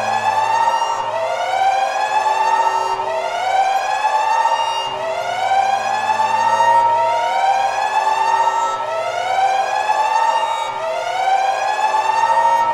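Siren-style alarm sound effect: a wail that rises and then levels off, repeating about every two seconds, over a steady low hum.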